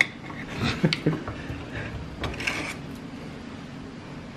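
Kitchen knife striking and scraping the tin lid of a can as it is cut open: a sharp metal click at the start, a few more clicks within the first second, and a brief scrape about two and a half seconds in.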